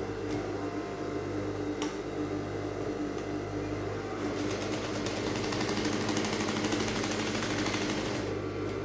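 Industrial sewing machine stitching a fabric strip down along one edge, with a steady motor hum; a fast, even run of stitching starts about four seconds in and stops just before the end.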